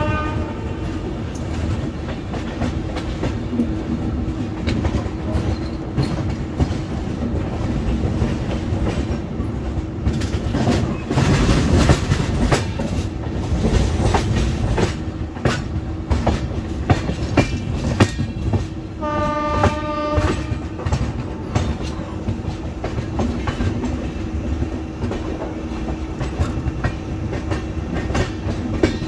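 Passenger train running on its track, heard from the coach doorway: a steady rumble of wheels on rail with clickety-clack, swelling louder for a couple of seconds a little over a third of the way through. A train horn sounds once for about a second, about two-thirds of the way through.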